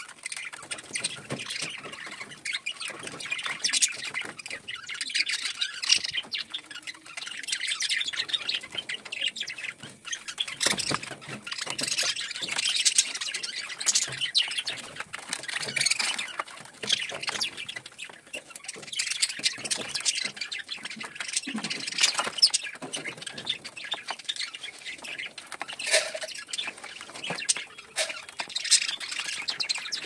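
A group of budgerigars chattering and chirping, many short overlapping squawky calls with no break.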